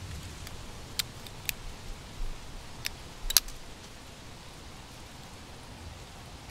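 A handful of short, sharp clicks and taps as a Tekto A3 Delta automatic folding knife is handled, the loudest a little over three seconds in, over a steady light hiss.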